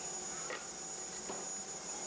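Insects trilling: a steady high-pitched tone with a few faint scattered chirps.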